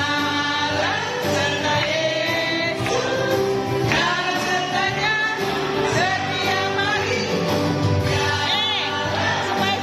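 A worship song: singing voices over instrumental accompaniment, with a wavering vibrato on a held note near the end.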